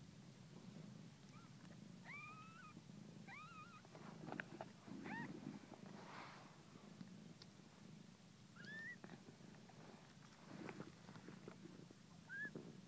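Nursing mother cats purring steadily, with newborn kittens giving short, high-pitched mews every few seconds, about six in all, and a few soft knocks of kittens shifting on the blanket.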